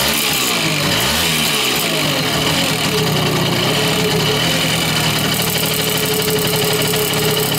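Simson S51 moped's two-stroke single-cylinder engine, blipped up and down a few times in the first two seconds, then idling steadily.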